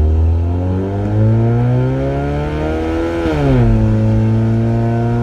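2005 Scion xB engine accelerating with a loud, go-kart-like exhaust note from a bad exhaust leak under the passenger compartment. The pitch climbs for about three seconds, drops sharply, then holds steady.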